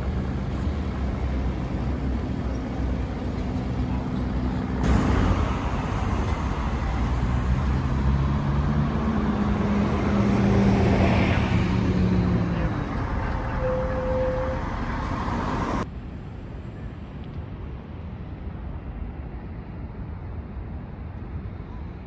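Road traffic: motor vehicle engines running with a steady low hum and road noise. The sound changes abruptly about five seconds in and again near sixteen seconds, and is quieter for the last several seconds.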